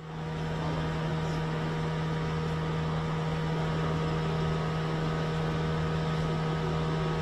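Steady mechanical hum of a running motor: an even low drone with a few faint steady tones above it and a soft hiss.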